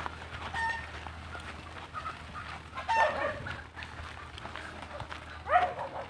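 Chickens calling: three separate short calls, the last rising in pitch.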